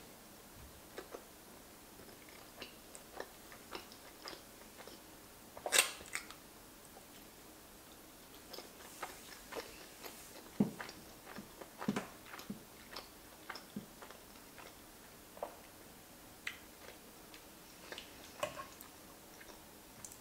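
Close-miked chewing of soft pasta: faint, wet mouth clicks and smacks at irregular intervals, with a sharper click about six seconds in.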